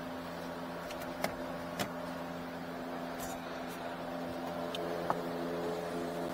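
Steady hum of the Nissan Rogue running with its newly replaced cabin blower motor switched on, with a few light plastic clicks as the loose dash trim panel is handled.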